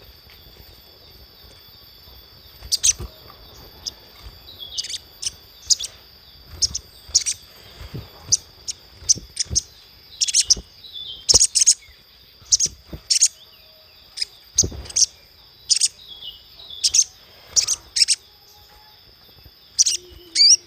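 Little spiderhunter calling: a string of short, sharp, high chirps at irregular intervals, some in quick pairs, over a steady high-pitched hum.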